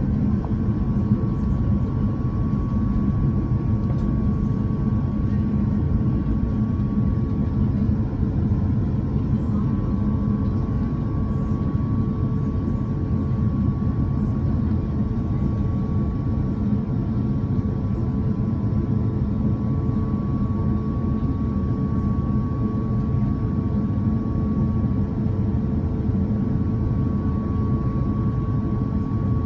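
Airbus A350-1000's Rolls-Royce Trent XWB engines running steadily, heard inside the cabin as an even low drone with a steady hum above it, with no spool-up.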